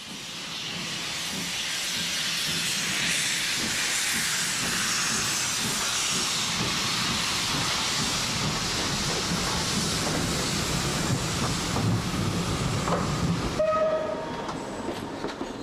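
Steam locomotive letting off a loud, sustained hiss of steam, with a low churning rumble beneath. Near the end the hiss stops abruptly and a brief high tone sounds.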